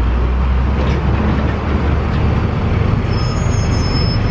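Road traffic crossing close by, with the loud, steady, low engine rumble of a bus among it. A thin, high squeal starts about three seconds in.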